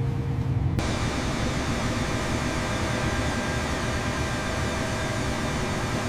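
Steady hum and rushing hiss of a jet airliner's engines running, starting abruptly as background music cuts off about a second in.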